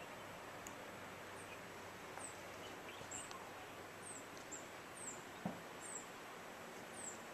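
Faint, steady rush of a waterfall, with a bird's high, short, falling chirps repeating about every second or a little faster.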